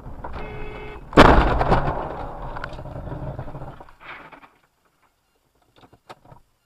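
Car collision caught from inside the car: a brief tone, then a sudden loud crash about a second in, with noise trailing off over the next few seconds. After that, almost nothing but a few faint clicks.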